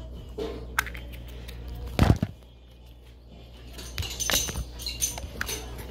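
Handling noise of a small plastic Easter egg and gummy candy: scattered light clicks and knocks, with one louder knock about two seconds in.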